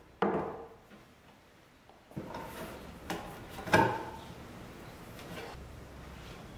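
Knocks and scraping from a particleboard countertop as the round sink cutout is pushed free by hand. There is one sharp knock at the start, then a run of knocks about two seconds in, with the loudest thump a little under four seconds in.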